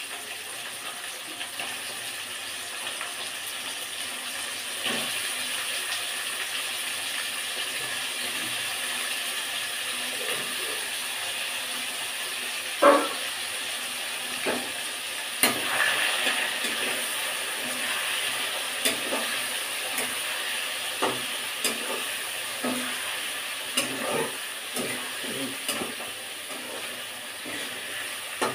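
Pieces of lote fish sizzling in hot oil and masala in an iron kadhai, a steady frying hiss. Scattered clicks and knocks of fish pieces and a metal spatula against the pan break through it, the loudest about 13 seconds in.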